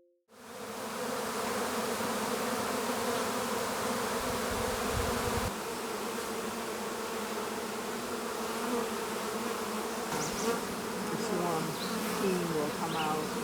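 A swarm of honeybees buzzing: a dense, steady hum of many wings.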